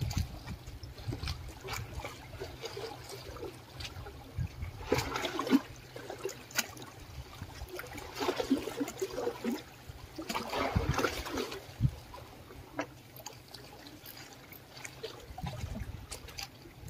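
Small sea waves lapping and splashing against concrete breakwater blocks, surging every few seconds.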